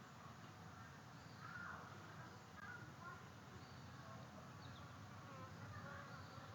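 Faint, steady buzzing of flying insects near the microphone, with a few faint short high calls.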